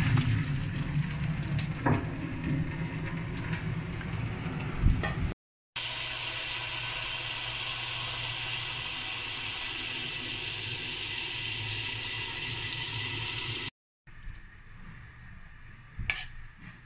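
Boiled macaroni and its hot cooking water poured into a metal mesh strainer in a sink, splashing unevenly. After a cut about six seconds in, a steady stream of tap water runs over the macaroni in the strainer. Near the end it is much quieter: butter melting in a frying pan, with a single sharp click.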